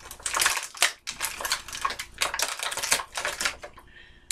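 Crinkling and crackling of thin clear plastic packaging being handled and pulled open by hand, a quick irregular run of crackles that thins out near the end.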